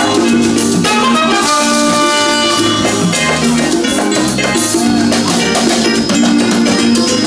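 Ghanaian highlife band playing live: drum kit and a repeating bass line under held melodic notes, at a steady loud level.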